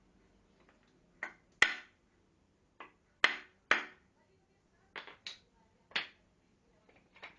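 About nine sharp knocks at uneven spacing, each dying away quickly: wooden parts or tools being struck or set down during workshop work. The loudest knocks come near the start and in the middle.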